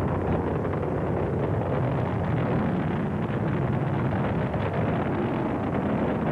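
Steady roar of the Saturn IB rocket's eight kerosene and liquid-oxygen first-stage engines as it climbs after liftoff, with an irregular crackle through it, in dull old broadcast audio.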